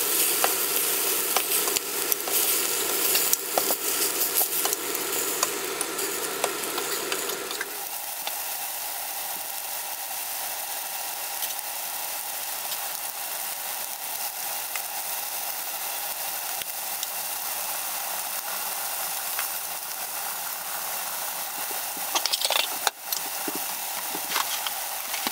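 Beef strips sizzling as they fry in olive oil in a stainless steel pan. The sizzle is louder and busier for the first eight seconds or so, then settles to a steadier hiss, with a few sharp clicks near the end.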